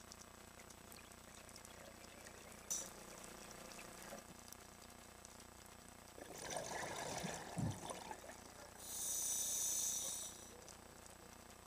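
Scuba regulator breathing underwater: a gurgle of exhaled bubbles about six seconds in, then a high, steady hiss of inhalation through the regulator lasting a second or two.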